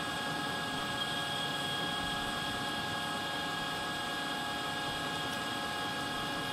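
Metal lathe running steadily, a constant hum with several steady whining tones, while a facing tool machines away the pip left at the centre of a parted-off workpiece.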